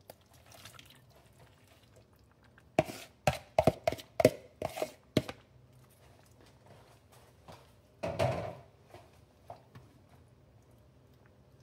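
A spatula knocking and scraping against a bowl and a slow cooker crock as cooked vegetables are scraped out of the bowl: about seven sharp knocks close together, then a second or so of quiet, then one longer scrape.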